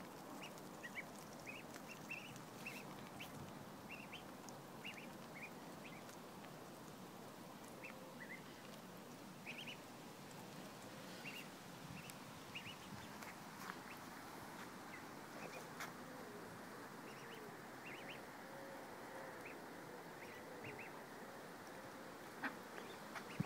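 Mallard ducklings peeping: many short, high chirps, faint and scattered, some in quick runs of two or three.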